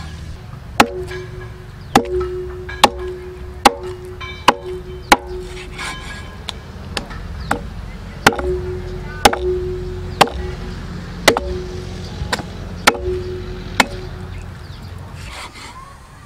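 Meat cleaver chopping through oxtail on a wooden chopping board: about sixteen sharp blows, roughly one a second, many followed by a short ringing tone, stopping near the end.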